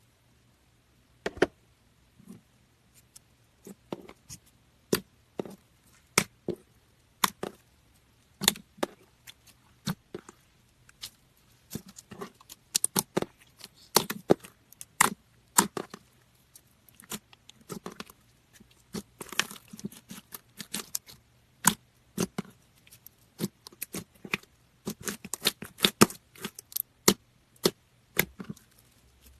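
Slime being squeezed and pressed by hand, giving irregular sharp clicks and pops that come thicker from the middle on.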